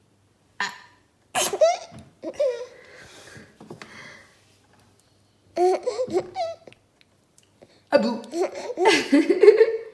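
Baby boy laughing hard in repeated bursts, with two short pauses, the loudest laughter near the end.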